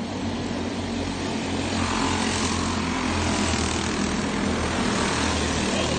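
Engines of small winged dirt-track race cars buzzing as they lap the oval. The sound gets louder about two seconds in as a car passes close by.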